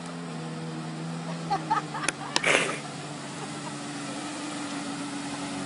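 Steady engine drone of a watercraft running on open water, with a couple of short clicks and a brief rustle about two and a half seconds in.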